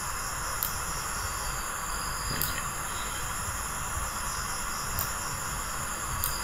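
Steady hiss from the recording microphone, with a few faint, short clicks scattered through it, like a computer mouse being clicked.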